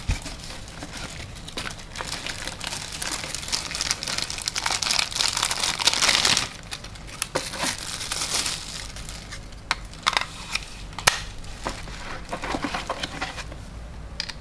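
Crinkling and rustling of plastic packaging being handled, with scattered small clicks and knocks; the rustling is busiest and loudest around the middle.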